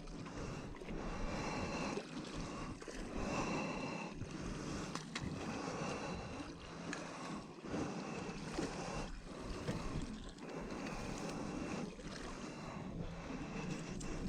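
Wind on the microphone and waves washing against the hull of a drifting boat, a steady rushing noise that surges and dips every second or so.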